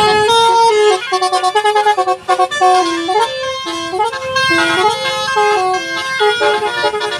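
Telolet multi-tone musical horn playing a rapid tune, its loud pitched notes stepping up and down one after another.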